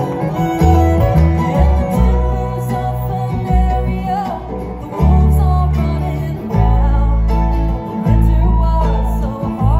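Bluegrass band playing live through a PA: fiddle, banjo, acoustic guitar and upright bass, with the bass notes loud and heavy.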